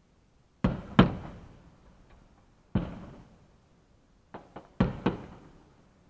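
Fireworks shells bursting overhead, heard from a dashcam inside a parked car: seven bangs, two close together about a second in (the second the loudest), one near three seconds and a quick run of four near the end, each fading away over a second or so.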